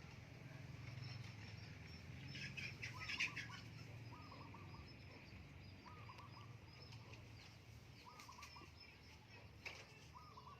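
Faint birdsong: a short call repeated about every second and a half, with a brief burst of higher chirps about three seconds in and a single sharp click near the end.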